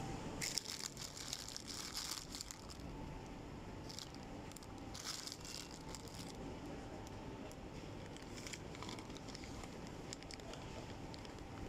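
Plastic Whiskas cat-food pouches crinkling and rustling in short bursts as they are handled on a shelf, over a faint steady hum.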